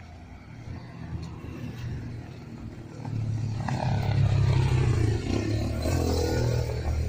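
Motorcycle taxi (three-wheeled mototaxi) engine approaching and passing close by, getting much louder about three seconds in.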